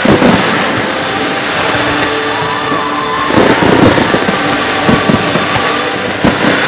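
Fireworks display: aerial shells bursting in a run of sharp bangs, thickening into a dense volley about three and a half seconds in, over a loud music soundtrack.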